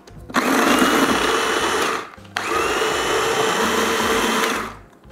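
Small electric food processor puréeing fresh tomatoes, its motor run twice with a short pause between, the second run a little longer. A high whine rides over the whir, rising as each run spins up and dropping as it stops.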